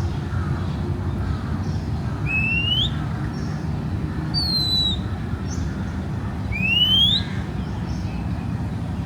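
A bird giving loud whistled calls, each a quick upward slur lasting about half a second, twice, with a slightly falling whistle between them. Underneath runs a steady low rumble of city traffic.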